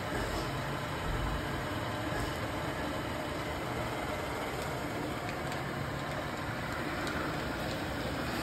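1999 TRAK DPM 3-axis CNC mill running a demonstration program: a steady machine hum, with a low motor drone that comes in for stretches of a second or so as the Z axis moves the head down.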